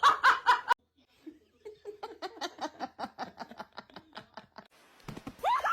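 Laughter in quick repeated pulses: a short loud burst that breaks off sharply, then a longer, quieter run of laughing.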